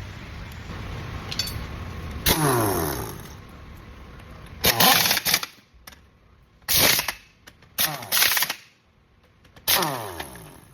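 Air impact wrench fired in five short bursts, each winding down in pitch as it stops, over a steady hiss at the start.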